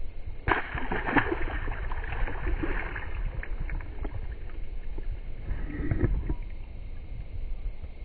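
A bass tossed back into a pond hits the water with a splash about half a second in, followed by a few seconds of splashing and sloshing water.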